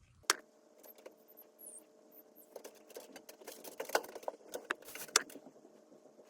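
Scattered light clicks and taps from hands handling small objects while working on a wig, over a faint steady hum.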